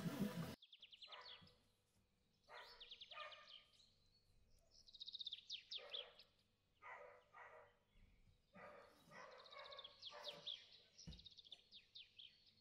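Faint songbird singing: several quick trilled phrases of high chirps with short pauses between them.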